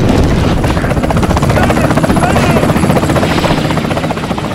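Military attack helicopters flying low, their rotors making a loud, fast, steady chopping beat.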